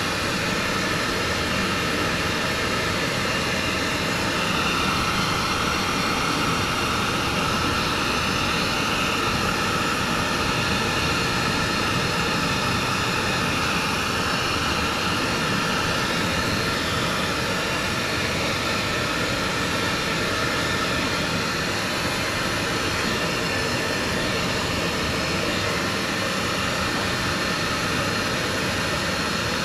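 High-velocity dog grooming dryer blowing a steady, loud rush of air through its hose onto a small dog's coat.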